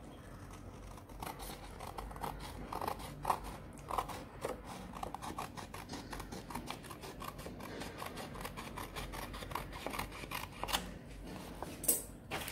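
Scissors cutting through a sheet of craft paper: a long run of short, quick snips, one after another, as a strip is cut off the sheet.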